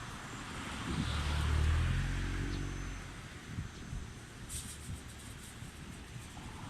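A low vehicle rumble with a steady low hum swells about a second in and fades out by about three seconds, over wind noise on the microphone.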